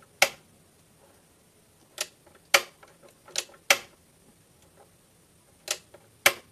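Gas stove ignition knob turned over and over, giving about seven sharp clicks, some in quick pairs, as the newly replaced igniter sparks and lights the burner.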